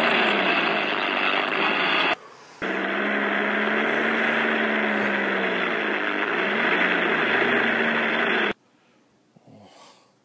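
Recorded John Deere tractor engines played back from a tape recorder: one engine running cuts off about two seconds in, and after a short break a second engine runs with its pitch rising and then falling. It stops abruptly near the end, leaving near silence. That second recording is named a 1946 John Deere D with a 501 cubic inch engine.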